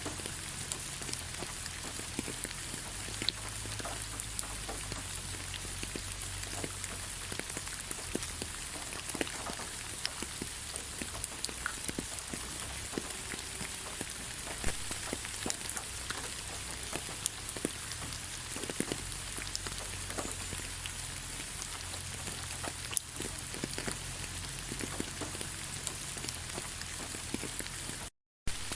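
Steady light rain falling, an even hiss dotted with many separate drops tapping. The sound cuts out completely for a split second near the end.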